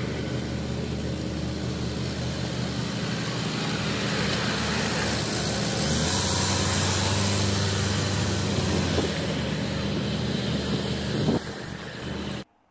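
Car engine and road noise from a moving car, a steady hum whose pitch shifts a couple of times midway. It cuts off suddenly near the end.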